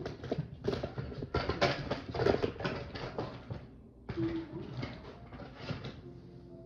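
Plastic parts of a Hot Wheels playset being handled and fitted together: irregular clicks, knocks and rustles that die down about six seconds in.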